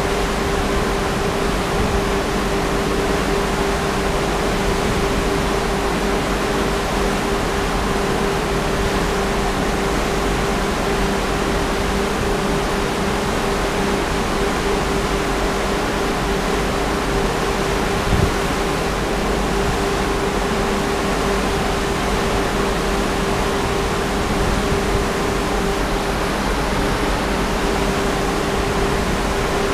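Strong wind of about 50 knots blowing steadily across a cruise ship's balcony, an even rushing noise with a steady hum underneath.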